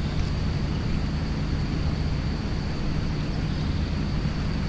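An engine running steadily with an even low hum, over a constant background hiss.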